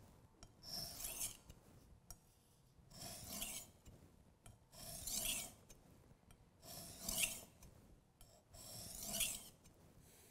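Chef's knife blade pushed hard across the 1,000-grit side of a Work Sharp combination whetstone: five gritty, rasping strokes about two seconds apart, each lasting about a second. The blade is grinding away steel to raise a burr along the edge.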